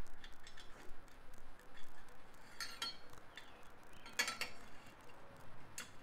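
Light metallic clicks and clinks from fitting a baffle into a car's exhaust tip, metal tools and parts knocking together, with two louder ringing clinks about two and a half and four seconds in.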